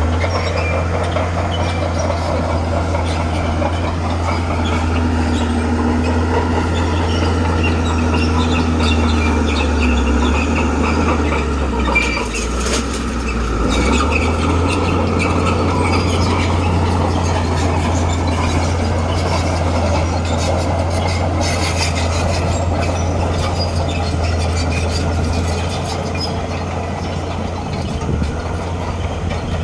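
Bulldozer's diesel engine running with a steady low drone that eases off briefly about twelve seconds in, along with metallic squeaking and clatter from its tracked running gear.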